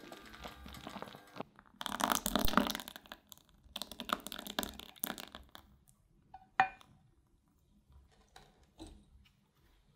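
Thick hot berry purée poured from a saucepan into a glass bowl of whipped cream mixture, with loud wet splattering and glopping in two spells. About six and a half seconds in there is one sharp clink on the glass, followed by a few faint taps.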